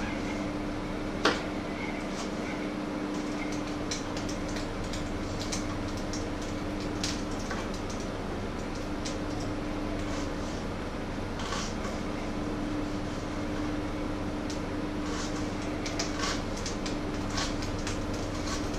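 Kitchen knife tapping irregularly on a wooden cutting board as food is chopped, with one sharper knock about a second in, over a steady hum.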